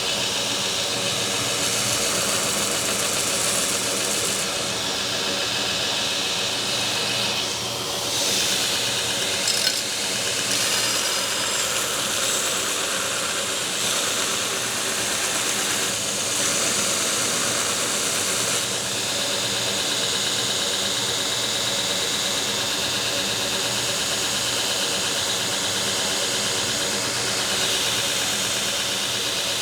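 Belt grinder running with a coarse 36-grit belt, grinding a forged W2 steel knife blade: a steady motor hum under a hissing grind that swells and eases every few seconds as the steel is worked against the belt.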